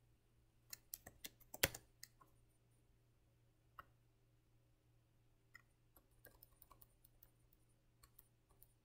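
Faint, scattered clicks of a computer mouse and keyboard driving a video player: a cluster of sharp clicks about a second in, one louder than the rest, a single click near four seconds, then a quicker run of light clicks from about five and a half to seven seconds and a few more near the end.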